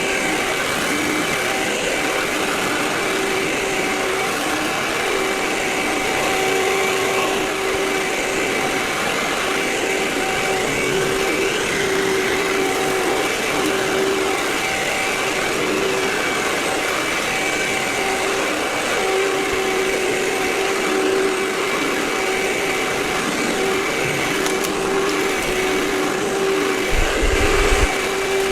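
Vacuum cleaner running steadily, its motor giving a constant whine over the suction noise, with the recording sped up four times. A brief low thump comes near the end.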